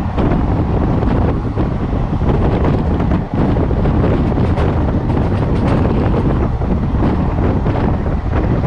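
Wind buffeting the microphone held outside a moving passenger train, over the steady rumble of the coaches running along the track.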